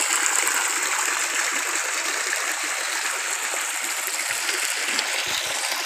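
Spring water pouring steadily from a spout and splashing onto rocks and into a shallow pool.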